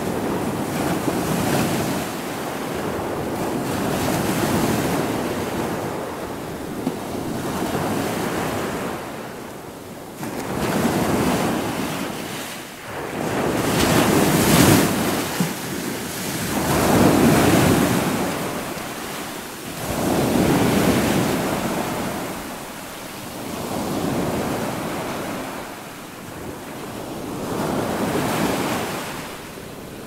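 Sea waves breaking and washing against a shore of large boulders. The rushing wash swells and fades every three to four seconds and is loudest about halfway through.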